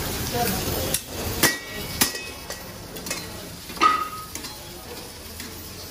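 Metal cooking utensils striking steel karahi woks: three sharp metallic clanks, the last and loudest ringing on briefly, over a frying sizzle that drops away after about a second.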